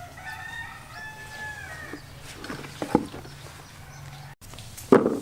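A rooster crowing once, a long held call that falls away at its end. Two sharp knocks follow about two seconds apart, the second the loudest sound.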